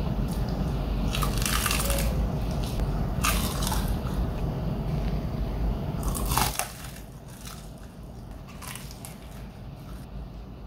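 Crunching of someone biting into and chewing a crispy double-fried Korean fried chicken drumstick, several crunches a second or two apart. A low steady rumble underneath stops about two-thirds of the way through.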